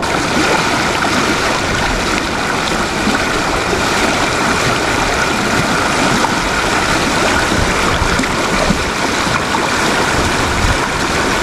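Mountain stream water rushing, a steady, loud, even rush.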